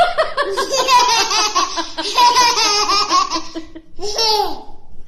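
A toddler girl laughing hard: one long run of belly laughter, then a shorter laugh about four seconds in.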